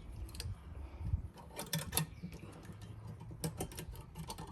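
A metal hive strap and its buckle being handled and adjusted: sharp clicks and light knocks in a few irregular clusters.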